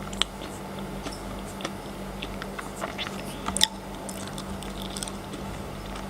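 Close-miked chewing of frozen chocolate: scattered sharp crunches and wet mouth clicks, the loudest just after the start and about three and a half seconds in.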